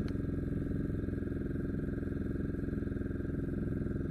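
Fishing boat's engine running steadily under way, heard from on board.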